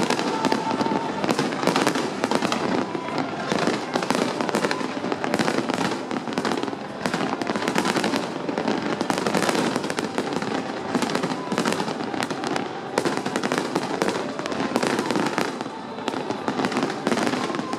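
Fireworks display: a dense, continuous barrage of aerial shells bursting and crackling, many overlapping bangs a second.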